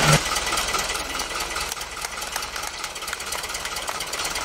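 A loud steady tone cuts off at the very start. Then a New Holland tractor's diesel engine idles with an even, rapid clatter.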